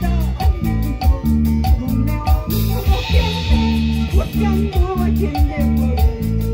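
Live band music from a harp, electric bass and drum kit, playing a brisk tune over a steady, driving beat with a prominent bass line. A cymbal crash comes about two and a half seconds in.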